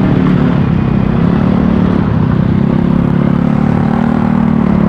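Honda Click automatic scooter engine running at a steady cruising speed while riding, with a low rumble of wind and road noise.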